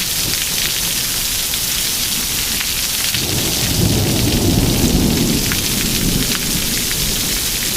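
Heavy rain pouring down with quarter-size hail, and scattered sharp ticks of hailstones striking. About three seconds in, a low rumble swells for several seconds and then fades.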